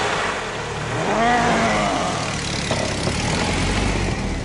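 A small Suzuki Samurai off-roader's engine idling steadily just after starting. There is a brief rising and falling tone about a second in.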